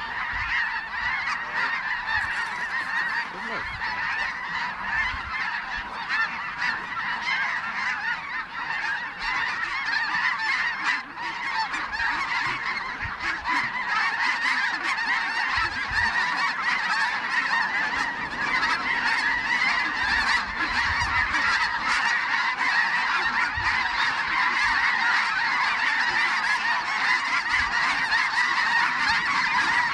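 A huge flock of snow geese calling all at once: a dense, unbroken din of high honking that swells louder about halfway through as the birds close in.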